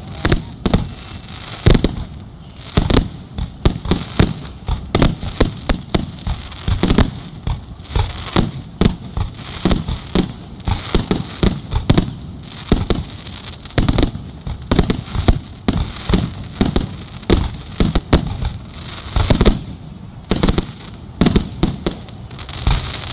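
Aerial firework shells bursting in quick, irregular succession, often several bangs a second, with a steady hiss between them.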